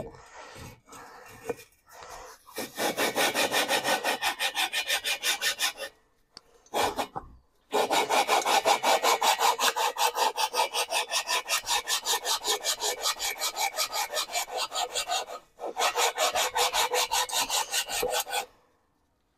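A Type 4 engine cylinder being lapped by hand onto its cylinder head with rubbing compound: a gritty scraping rasp of rapid back-and-forth strokes, about four a second, in three runs with short pauses. The compound is grinding the two sealing surfaces to a shiny, matched fit.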